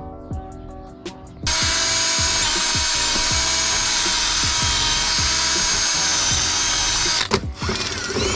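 Cordless drill boring through a steel bracket clamped in a vise, running steadily at full speed for about six seconds to enlarge the bracket's holes, then stopping. Near the end the drill/driver gives a couple of brief spin-ups.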